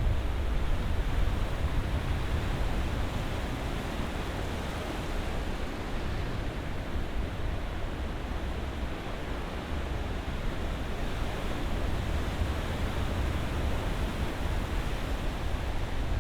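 Ocean surf washing continuously with a deep low rumble, easing a little midway and swelling again near the end.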